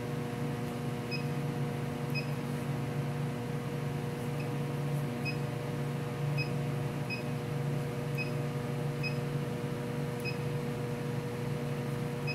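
Short high beeps, about ten at uneven intervals, from the keypad of a Bacharach MZ-RD refrigerant monitor remote display as its buttons are pressed, over a steady machinery hum.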